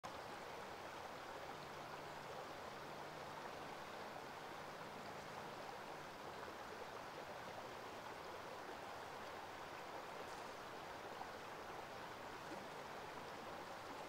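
Shallow river running over rocks: a steady rush of flowing water.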